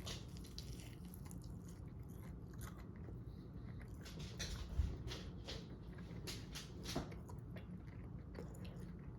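A person chewing a bite of breaded, honey-coated cooked squirrel meat, with many small irregular crunching clicks.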